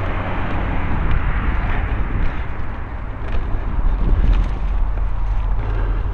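Mountain bike riding over a leaf-covered forest trail: steady rushing noise of wind on the microphone and tyres on the ground, under a low rumble with a few small clicks and rattles.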